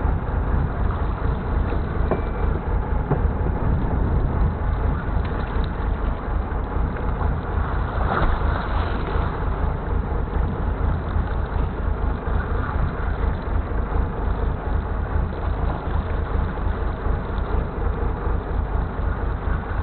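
Steady low rumble with a hiss above it, as heard aboard a small fishing boat at sea.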